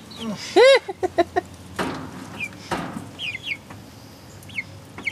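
Hens clucking and calling: one loud call about half a second in, a few short clucks after it, then a run of short, high, falling peeps.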